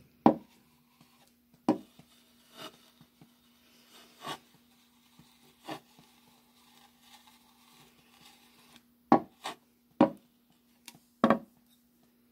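Short, separate knocks of a small cast-iron pouring ladle tapping and being set down on a wooden box lid, about nine in all, with a quick group of them near the end.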